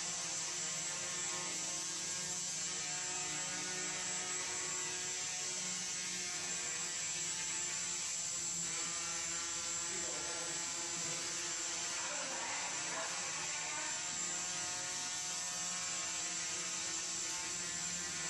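Hexacopter's six motors and propellers buzzing steadily as it hovers, a dense whine made of many even tones that holds level throughout.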